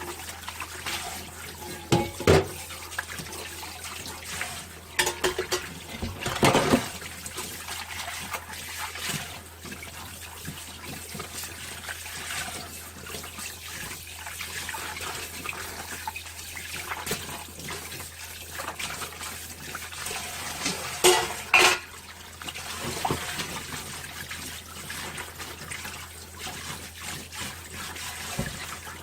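Dishes being washed by hand at a kitchen sink: tap water running steadily, with dishes clattering loudly a couple of seconds in, again around six seconds in, and again about two-thirds of the way through.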